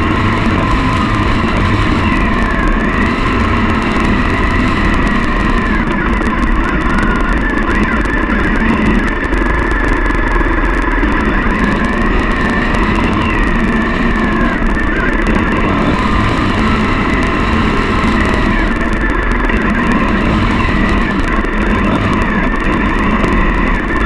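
Triumph Bonneville's parallel-twin engine running steadily at road speed, under a constant rush of wind. The engine note drifts a little higher and lower as the throttle changes.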